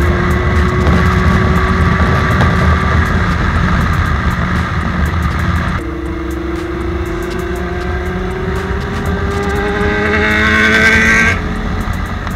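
Motorcycle engine accelerating, heard from the rider's seat over steady wind rumble: its pitch climbs, drops about six seconds in at a gear change, climbs again more loudly, and falls away sharply near the end.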